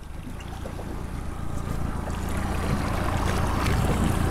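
Wind buffeting the microphone over water rushing along the hull of a boat under way, growing steadily louder.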